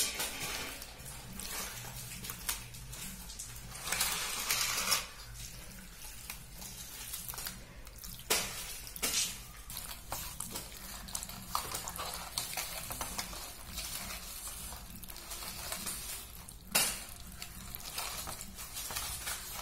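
Wet squelching of a hand mixing cubed raw pork into a thick masala paste in a steel bowl, with a couple of sharp knocks against the bowl.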